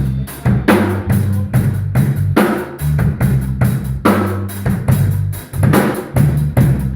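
Live instrumental band playing: a drum kit keeps a steady beat with bass drum, snare and cymbals over a moving bass line.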